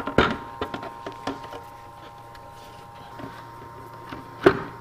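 Hard plastic knocks and clicks from handling a filament spool inside its plastic caddy while threading the filament: a quick run of them early, then one sharp knock near the end. A steady hum from the powered-on UP Mini 2 3D printer runs underneath.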